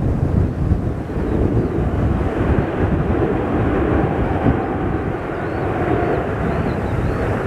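Airbus A380's four jet engines roaring during a low display pass, with a faint whine in the middle of the pass. Wind buffets the microphone.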